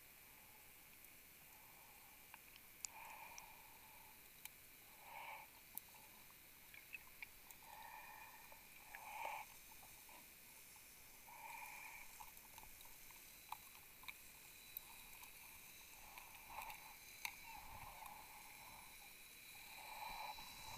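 Near silence underwater: a series of faint, soft hissing sounds at irregular intervals, with a few tiny clicks in between.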